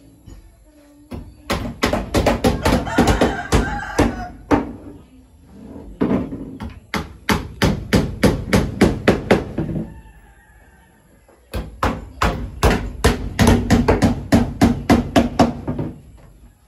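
Hammer driving nails into wood, struck fast at about four to five blows a second, in three runs with short pauses between.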